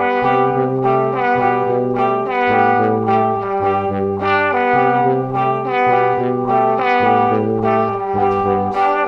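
Instrumental background music, a stock library track, with held bass notes that change about once a second under a brassy melody.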